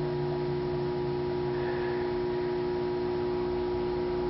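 Steady background hum made of a few constant tones over a faint hiss, unchanging in level.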